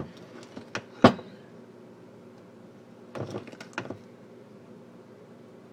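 Spoon knocking and scraping against a mixing bowl while stirring brownie batter: a few sharp knocks in the first second, the loudest about a second in, then a short run of scrapes and knocks around three to four seconds in.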